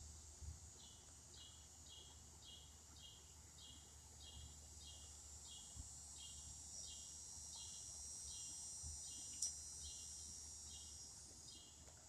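Faint insect chorus: a steady high-pitched hum with a short chirp repeating about twice a second. A single click about nine seconds in.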